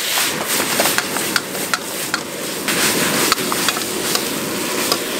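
Stir-frying in a wok: a metal ladle scraping and clacking irregularly against the iron wok as pork liver, peppers and onion are tossed, over a steady sizzle.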